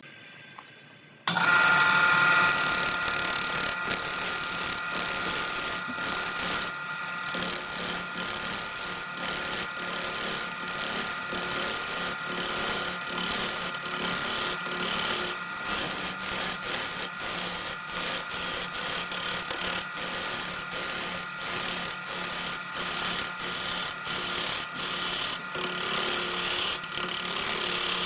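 Wood lathe running with a steady motor whine while a turning tool cuts into the spinning redwood, scraping in short strokes broken by brief gaps. It starts suddenly about a second in.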